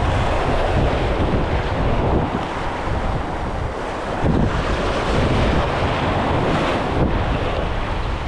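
Wind buffeting the microphone over the steady wash of waves and surf.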